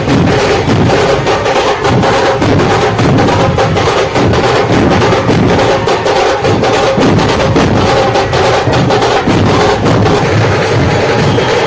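Dhol-tasha troupe playing: many dhol barrel drums and tasha drums beating a fast, loud, continuous rhythm.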